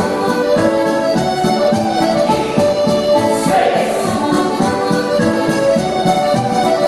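Recorded Scottish country dance band music played over the hall's sound system: an accordion-led reel at a brisk, steady beat.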